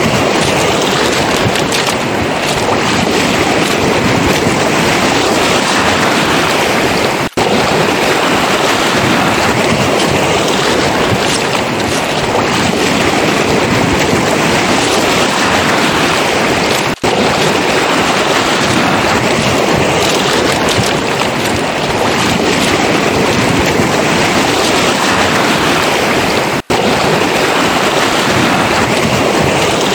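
Footsteps crunching on beach pebbles beside breaking surf, the waves hissing over the stones in gentle swells. The sound cuts out for an instant three times.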